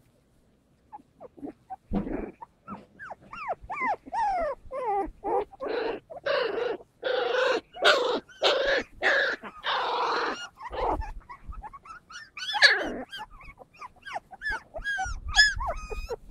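Puppies whimpering and yelping: a string of short, high cries that fall in pitch. They begin a couple of seconds in and are loudest and most crowded from about six to ten seconds in.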